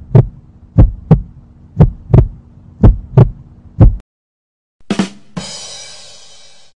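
Heartbeat sound effect: deep lub-dub thumps about once a second for four seconds. Then a 'ba dum tss' rimshot sting: a drum hit followed by a cymbal crash that rings out and fades.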